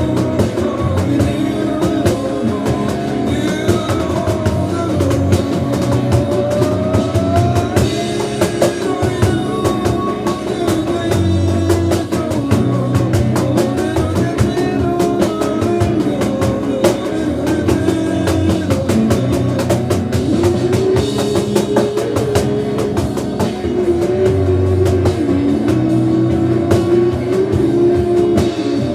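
Batucada, a Brazilian samba drum ensemble, playing a steady fast rhythm, with a melody line gliding over the drums.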